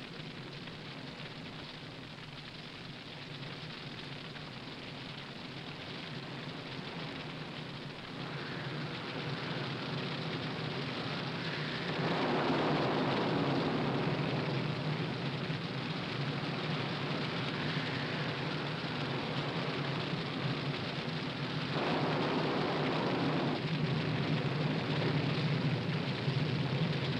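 Forest fire burning through pine timber: a steady rushing noise that grows louder, swelling about halfway through and again near the end.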